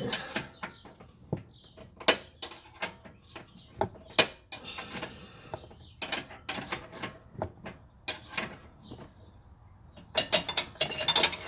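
Ratchet wrench clicking in short, irregular strokes as it loosens the 21 mm nut on the rear bolt of a lower control arm. A fast run of clicks comes near the end.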